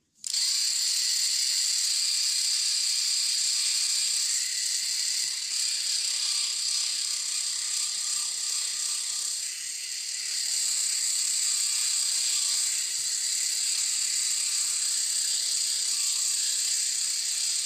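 Motor and plastic gearbox of a battery-powered Thomas & Friends Belle toy locomotive running, a steady high-pitched whir with a slight dip about ten seconds in. Belle's gear is cracked.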